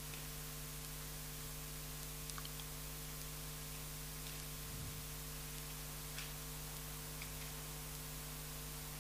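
Steady electrical mains hum with hiss, with a few faint ticks scattered through.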